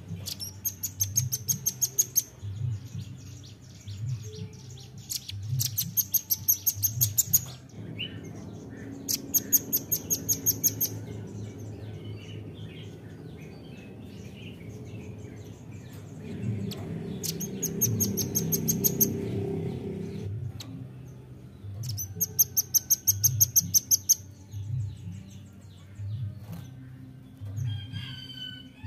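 Velvet-fronted nuthatch calling in five series of rapid, high-pitched chip notes, each series lasting one to two seconds.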